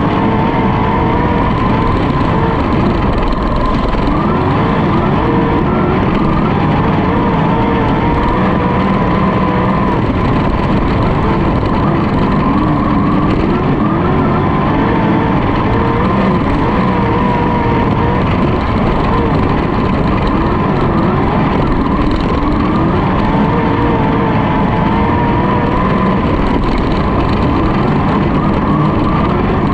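Sprintcar's methanol-fuelled V8 at race pace, heard loud from on board the car, its revs rising and falling in a continuous wavering pitch as it is driven through the turns of a dirt oval.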